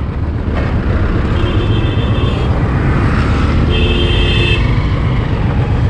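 Road traffic with a motorcycle engine idling low and steady. A vehicle horn sounds twice, each blast about a second long, a couple of seconds apart.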